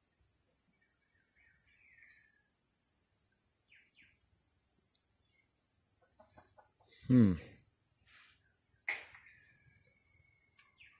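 Steady high-pitched chorus of rainforest insects, with scattered bird chirps. About seven seconds in, a chicken gives a short loud call that falls in pitch, and a bird follows with a sharp falling whistle about two seconds later.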